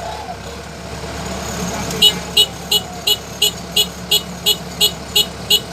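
Kubota DC-105X combine harvester running steadily. About two seconds in, its warning beeper starts, beeping evenly about three times a second.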